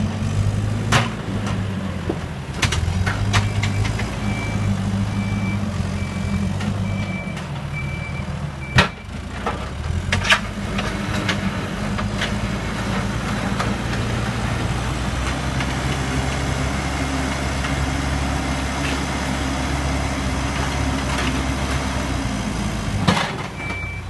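Diesel engine of a backhoe loader running under work, its note rising and falling in the first half and holding steady later. A reversing alarm beeps for several seconds in the first third, and a few sharp clanks and knocks stand out over the engine.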